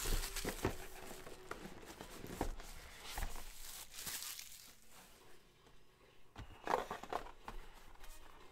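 Plastic shrink-wrap crinkling and tearing as it is pulled off a sealed 2016 Panini Honors football card box, with a few soft knocks of the cardboard box being handled later on.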